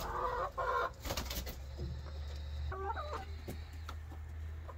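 Chickens clucking: two short calls right at the start and another about three seconds in.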